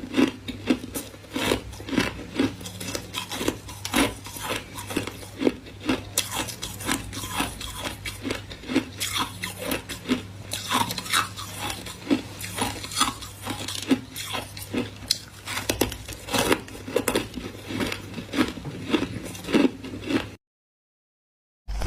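Close-up crunching and chewing of frosty freezer ice, sharp crisp crunches coming a few times a second over a steady low hum. The sound cuts to silence for about a second near the end.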